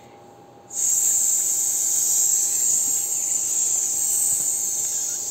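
A loud, steady high-pitched hiss that starts abruptly about a second in and holds without change.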